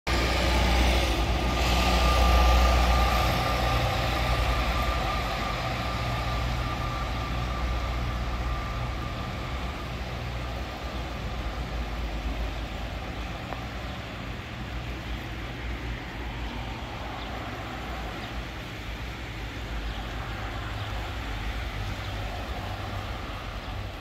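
Fast brown floodwater rushing through a walled river channel. A road vehicle passing alongside is loudest in the first few seconds and fades away.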